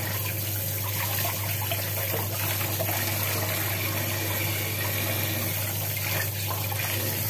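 Kitchen tap running steadily into a sink, the stream splashing over a whole small tuna and the hands rinsing it.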